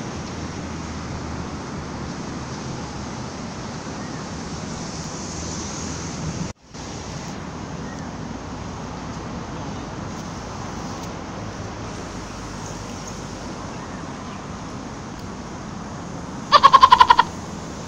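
Steady outdoor background noise of wind on the microphone and a low hum of distant road traffic, cutting out for a moment about six and a half seconds in. Near the end comes the loudest sound: a short, quavering, pitched call lasting under a second.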